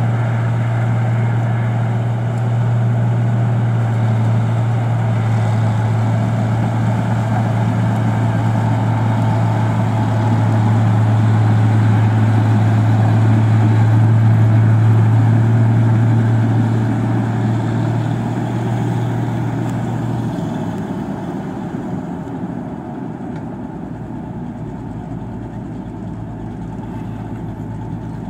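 New Holland 1545 combine harvester running steadily while harvesting rice, a strong low steady hum over the engine and machinery noise. It grows louder as the machine comes close, then the hum drops away and the sound falls off about two-thirds of the way through.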